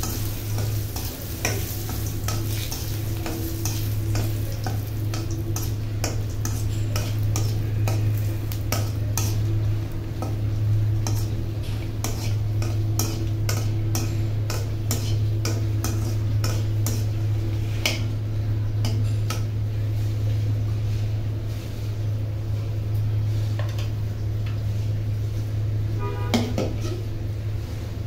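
Whole dried red chillies frying in hot oil in a wok, sizzling, while a metal spoon stirs them and clicks repeatedly against the pan. A steady low hum runs underneath.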